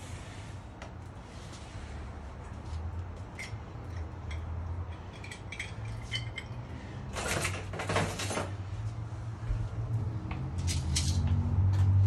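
Small metal clicks and clinks of deadbolt lock parts being handled, with two short, louder bursts of noise about seven and eight seconds in. A low rumble grows louder near the end.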